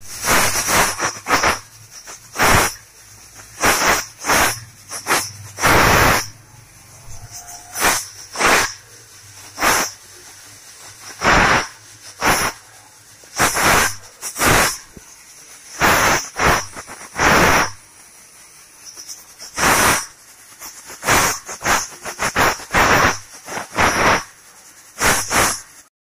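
Aluminium pressure cooker on a gas flame venting steam through its weight valve in short, loud hissing puffs, irregular, roughly one a second, over a softer steady hiss. The cooker is at full pressure. The sound cuts off abruptly at the end.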